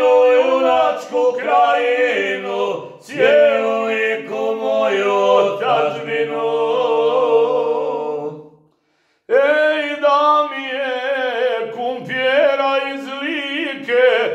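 Two men singing a Lika folk song together without accompaniment, in long held, wavering notes. The singing breaks off for about half a second a little past the middle, then picks up again.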